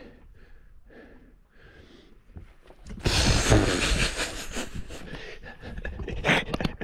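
A large king threadfin salmon and the landing net shifting on a boat deck: quiet at first, then about three seconds in a sudden loud burst of rustling and knocking that eases off over the next few seconds.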